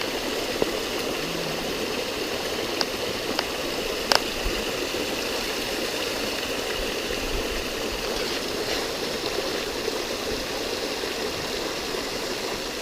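Small spring-fed waterfall and creek running steadily, a constant splashing flow. A few short sharp clicks sound over it, the sharpest about four seconds in.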